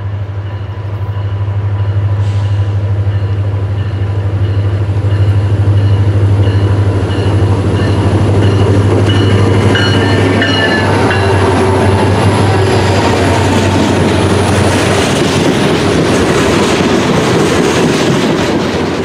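Diesel freight locomotive and its train passing close by. A steady low engine drone gives way after about fifteen seconds to a louder, noisier rumble of the wheels and cars rolling over the rails.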